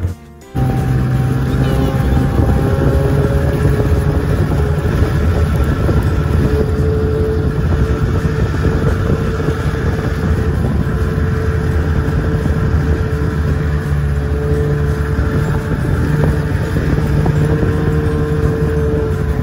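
Snowmobile engine running steadily at cruising speed while towing two sleds, with a short gap in the sound about half a second in.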